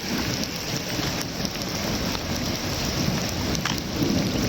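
Heavy rain pouring down steadily during a thunderstorm, with a few faint drip clicks.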